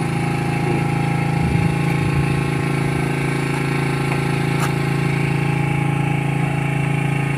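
Engine on a small fishing boat running steadily at a constant speed, an even hum with no change in pitch, with a few faint clicks over it.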